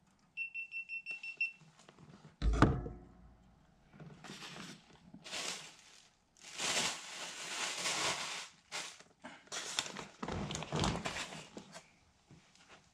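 Paper and plastic food bags rustling and crinkling in repeated bursts as a Popeyes takeout bag is unpacked. Before that, a short run of quick electronic beeps and a single hard knock with a brief ring.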